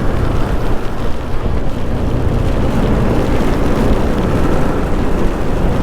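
Motorcycle riding at speed: steady, loud wind rush over the microphone with the engine and tyres running underneath.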